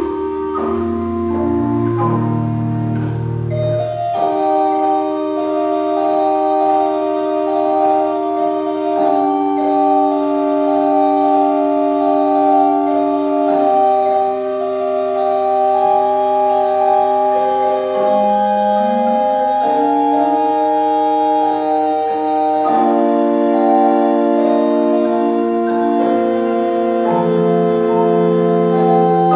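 Organ playing held chords under a slow-moving upper melody, with deep bass notes that stop about four seconds in. It is the postlude closing a church service, following the blessing.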